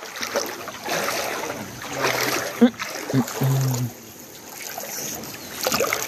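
Muddy floodwater sloshing and splashing as someone wades through it, with brief bits of voice partway through.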